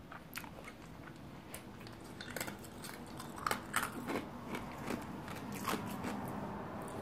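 Soft, irregular mouth clicks and smacks of lips and tongue, like slow chewing, close to the microphone.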